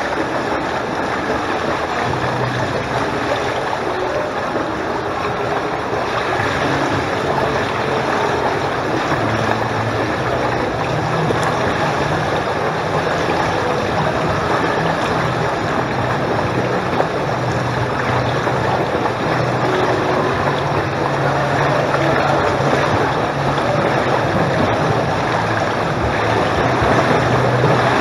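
Pool water sloshing and lapping in the gutter beside the microphone, with a freestyle swimmer's splashing growing louder toward the end. A steady low hum runs underneath.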